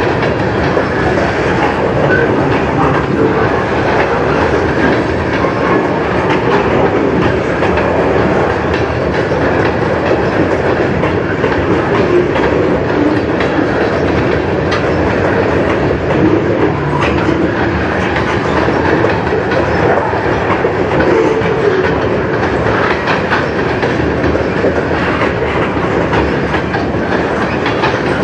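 Freight train's covered hopper cars and tank cars rolling past close by, steel wheels running steadily over the rails with a scatter of small clicks.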